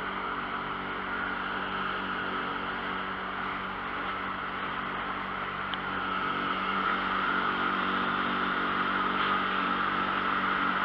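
Small fishing boat's outboard motor running steadily at cruising speed, with the rushing hiss of water and wake along the hull. It grows a little louder from about six seconds in.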